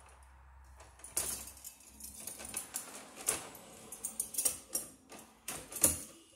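Light metallic clicks and rattles of a metal electrical plate being worked into a wall opening among the wires, with one sharper click near the end.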